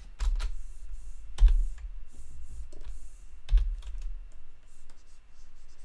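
Computer keyboard keys being pressed in a few scattered clicks, two of them louder with a dull thump, about one and a half and three and a half seconds in.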